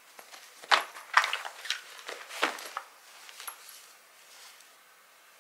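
Handling noises from a crocheted tote bag being lifted and set down: a handful of short rustles and light clicks over the first three seconds or so, then it goes quiet.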